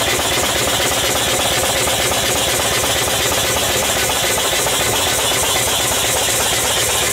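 20 HP double-acting V-twin steam engine running steadily on steam, a fast, even beat of its strokes with a constant hiss of steam.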